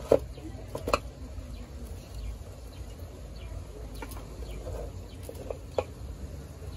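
A wooden spoon stirs shredded cabbage in an aluminium pot and knocks sharply against the pot three times: twice in the first second, once more near the end. Faint bird calls, likely chickens, sound in the background.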